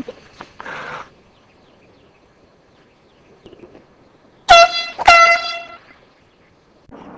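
Air horn blown twice in quick succession, a short blast then a slightly longer one, each a loud, steady, piercing tone.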